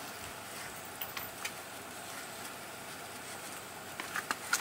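A few light clicks and taps over a steady faint hiss as an oil drain plug is threaded back into the oil pan by hand: a couple about a second in and a small cluster near the end.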